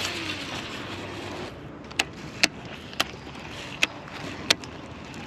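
A cast with a baitcasting reel: a whoosh, then the spool's whir falling in pitch over the first second or so. Five sharp clicks follow, spread unevenly over the next few seconds.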